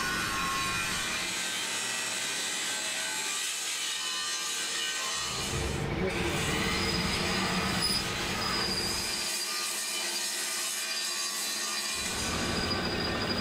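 Metal lathe turning a steel shaft, the tool cutting with a steady rasping, scraping sound over the hum of the running machine. The sound shifts a few times, losing and regaining its low rumble.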